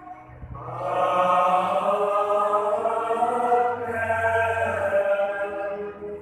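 Voices singing a liturgical chant together in long, held phrases over a low sustained note. One phrase begins about half a second in and another near four seconds.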